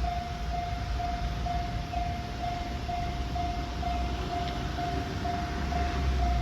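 Japanese railway level crossing's electronic warning bell ringing steadily, about two evenly spaced dings a second, over a low rumble.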